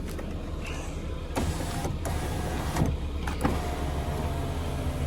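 Lada Vesta SW Cross front passenger door's electric window motor running the glass up and down. It starts about a second and a half in, with a few clicks as it stops and starts again. The regulator slides are freshly greased with Litol, and the squeak on closing has been cured.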